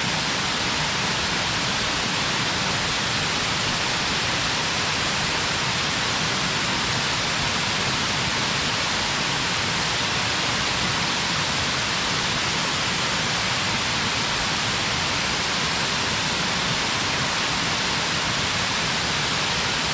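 A waterfall plunging steadily, a constant even rush of falling water with no breaks.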